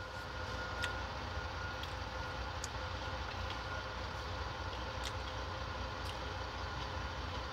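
Steady low rumble of an idling semi-truck's diesel engine, heard inside the cab, with a faint steady hum above it and a few faint clicks.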